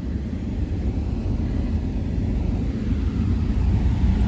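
Steady low rumble of a vehicle running, heard from inside its cabin. It grows slightly louder toward the end.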